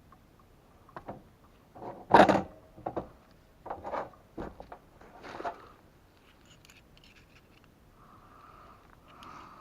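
Hand tools and wires being handled: a string of short clicks, snips and scrapes, the loudest about two seconds in. A faint steady hum comes in near the end.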